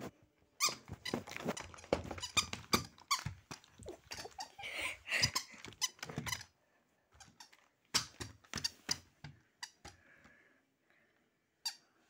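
Plush husky toy squeaking as it is squeezed and squashed, with rustling and bumps of handling close to the microphone. The sounds come thick for about six seconds, then in scattered bits.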